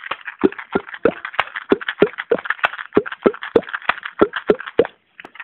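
Mouth percussion: a steady beat of low, resonant pops with sharper clicks between them, about three pops a second, made with the mouth and cheeks. It stops abruptly near the end.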